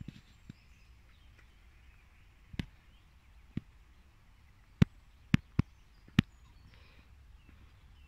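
About six sharp clicks over a faint, quiet outdoor background. Two come around two and a half and three and a half seconds in, and a louder cluster of four falls between about five and six seconds in.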